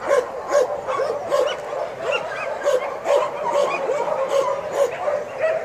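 Several dogs barking and yipping at once, short barks coming several times a second and overlapping.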